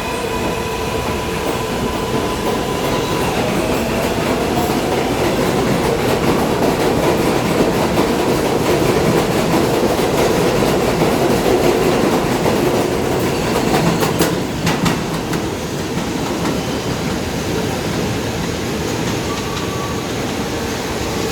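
New York City Subway train, an R188 on the 7 line, running on the rails with steady wheel and motor noise that grows louder toward the middle. A quick run of clicks comes about 14 seconds in, after which it runs a little quieter.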